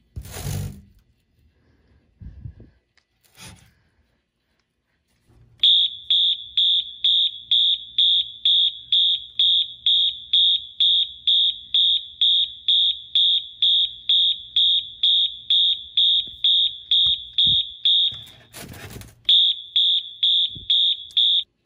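Wheelock MT multitone fire-alarm horn sounding a high, pulsing tone, about two to three beeps a second, which breaks off briefly near the end under a rustle, resumes and then stops. A short knock comes at the start, a few seconds before the horn begins.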